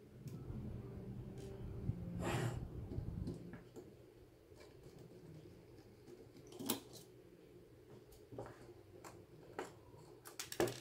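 Faint clicks, taps and scraping of small hand tools and metal parts as a graphics card is taken apart to get at its cooling fan screws. A rustling, handling noise comes a couple of seconds in, a sharp click about six and a half seconds in, and a quick run of clicks near the end.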